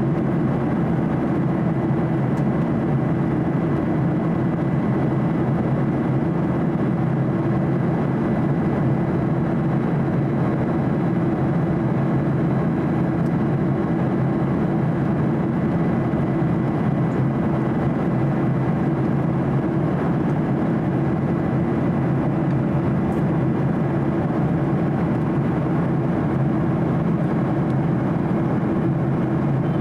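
Steady cabin noise inside a Boeing 737-800 in flight: the low hum of its CFM56-7B turbofans and the rush of air along the fuselage, with a faint high whine held at one pitch.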